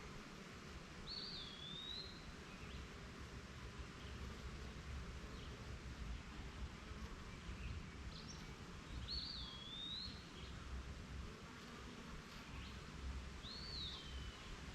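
A bird gives a short swooping whistled call three times, each about a second long and spaced several seconds apart, over the faint steady hum of honeybees flying around a hive.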